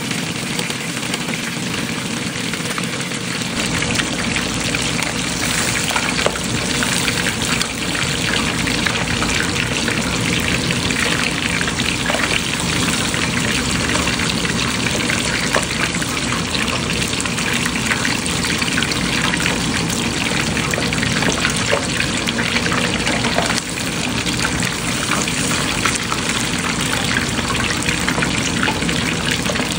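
Whole snapper deep-frying in hot oil: a steady, dense sizzle full of small crackles and pops. A low rumble sets in underneath about three seconds in.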